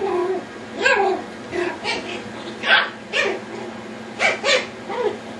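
Yorkshire terrier puppies barking in play: a string of about eight short, high-pitched yips and barks at uneven intervals.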